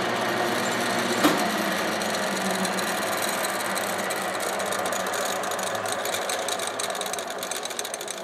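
Headstock gear train of a 1956 Pratt & Whitney 12C lathe running with its cover off, a steady mechanical clatter of gears meshing and clutch packs turning in oil. There is a sharp click about a second in, and the sound gets gradually quieter toward the end.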